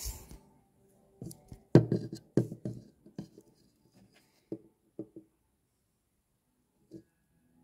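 A black ABS plastic sewer flange and a pair of digital calipers being handled and set against each other on a wooden tabletop: a quick run of knocks and clatters over the first few seconds, then a few single clicks as the calipers are closed on the flange to measure its outside diameter.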